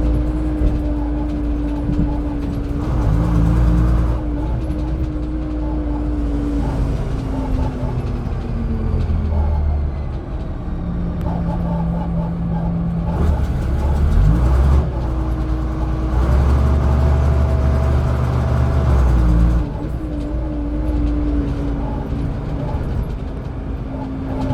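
Dennis Dominator double-decker bus engine running under way, surging with heavy low rumble in several bursts as it pulls away and works through the gears, its note gliding and stepping in pitch, with a steady whine on top.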